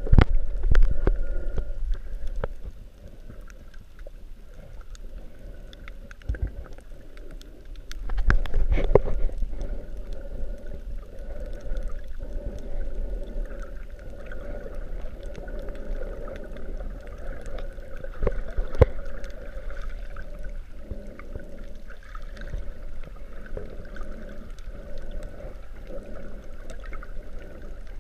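Underwater sound heard through a GoPro's waterproof housing: a muffled low rumble of moving water with a steady hum and scattered clicks. There is a louder swell of water noise at the start and another about eight seconds in.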